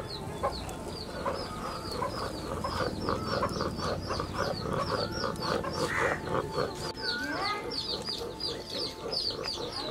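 Hens clucking in a quick, even run of clucks, over small birds chirping high and fast. A bird gives a short gliding call about seven seconds in.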